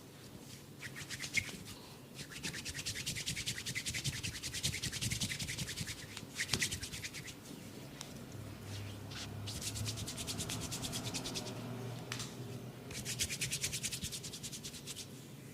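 Rapid back-and-forth rubbing of a hands-on massage close to the microphone: quick, even scratchy strokes in about five bursts with short pauses between them.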